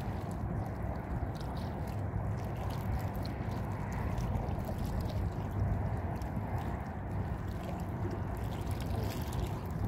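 Steady low rumble of wind on the microphone, with sea water lapping close by.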